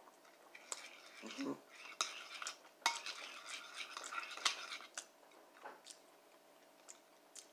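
Metal spoon scraping and clinking against a bowl of oatmeal as it is stirred and scooped. There are several sharp clinks, with scraping between them, busiest in the middle.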